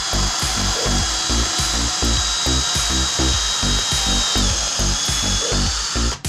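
WORKPRO 20V cordless drill running steadily with a countersink bit, pre-drilling a screw hole into a wooden slat; its whine stops near the end. Background music with a steady beat plays throughout.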